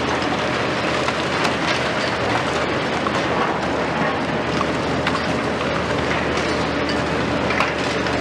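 Liebherr 974 and Hitachi 870 high-reach demolition excavators working: diesel engines running steadily under a continuous crackle and patter of broken concrete falling as the top of a concrete tower block is crushed.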